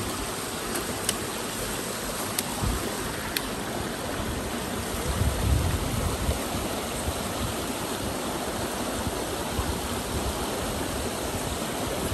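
Shallow rocky river running steadily over stones. A few light clicks in the first few seconds and a brief low rumble about halfway through.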